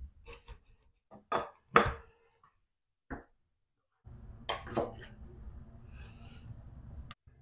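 Ceramic wall tiles clinking and knocking together as they are handled: several short knocks in the first two seconds, more around three and five seconds in. A low steady hum runs underneath from about four seconds in.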